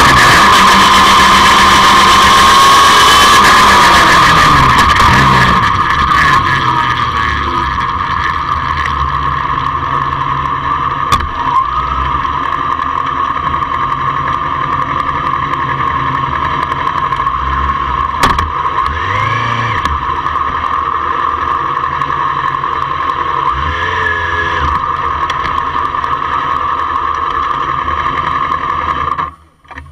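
Motorcycle engine and wind noise heard from a camera mounted on the bike: loud while it rolls along and slows with falling pitch, then from about six seconds in the engine idles steadily at a standstill, with a constant high tone over it.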